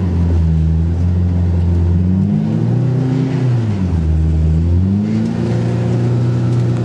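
Polaris RZR Pro R's 1997cc inline four-cylinder engine under throttle as the side-by-side drives: the revs climb, hold and drop back a few seconds in, then climb again near the end.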